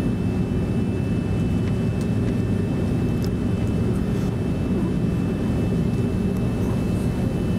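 Inside the cabin of an Airbus A330-300 taxiing onto the runway: a steady low rumble from its Rolls-Royce Trent 700 engines at taxi power, with a faint steady high whine.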